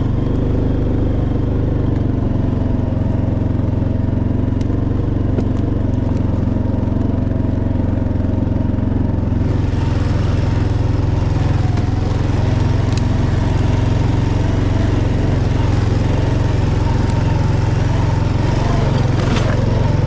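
Vehicle engine running steadily on the move, heard from on board as a low, even drone. About halfway through, a hiss of tyre and road noise joins it, with a few light ticks.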